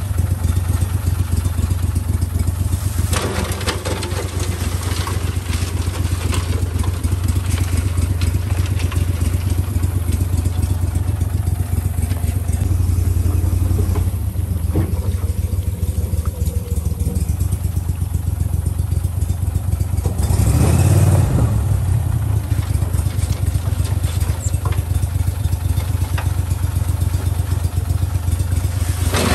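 Gator Tail mud motor on a crawfish skiff idling steadily with a low hum, growing briefly louder about 20 seconds in.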